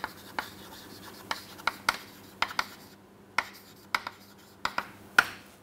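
Chalk writing on a chalkboard: an irregular string of sharp taps and short scratching strokes as letters are written.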